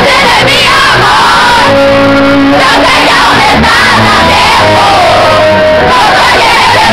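Live pop ballad played by a band with piano and drums under a male lead vocal, with the crowd singing and shouting along. The recording is loud and steady throughout.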